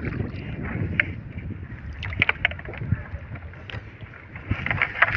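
Small fishing boat at sea: a steady rumble of wind on the microphone and water against the hull, with scattered knocks and clicks.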